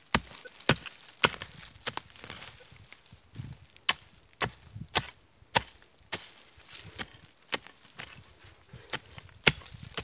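A pick digging into stony soil: sharp chopping strikes at an irregular pace, about one or two a second.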